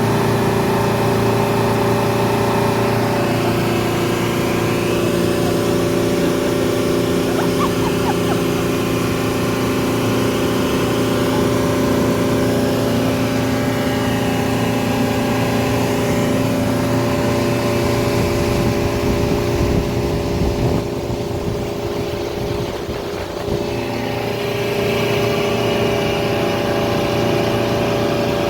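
Motorboat engine running steadily, with a short dip in level about two-thirds of the way through before it picks back up.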